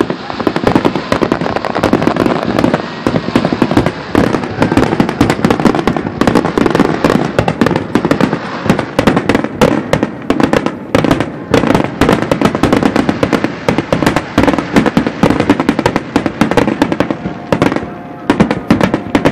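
Aerial fireworks going off in a dense, continuous barrage of bangs and crackles, one burst hard on the next.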